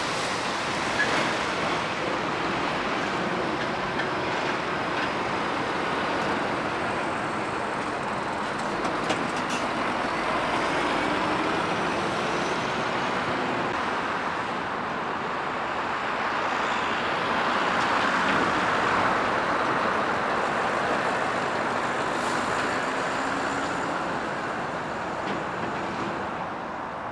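Articulated lorries and cars driving slowly past, diesel truck engines running and tyres on tarmac over a steady wash of traffic noise, swelling a little about eighteen seconds in.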